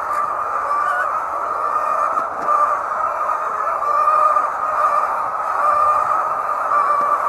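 A large flock of laying hens clucking and calling all at once, a steady dense din of many overlapping bird calls.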